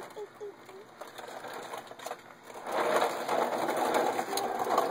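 A baby walker's plastic wheels rolling and rattling over rough concrete, a grainy clattering that grows much louder about two and a half seconds in as it moves faster.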